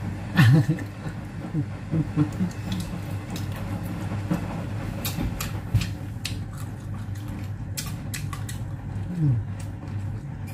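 Mukbang eating sounds: chewing and wet mouth clicks while eating chicken adobo and rice by hand, with a short wordless exclamation about half a second in and a falling "mm" near the end. Under it a steady low hum, from a noisy washing machine running.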